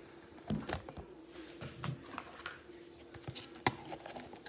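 Quiet handling of a plastic slime container and its blue plastic lid: soft rubbing and scattered small clicks, with one sharper click a little before the end.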